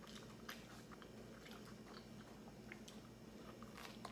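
Faint sounds of a person biting and chewing a slice of vegetable-topped pizza, with small crunches and scattered mouth clicks.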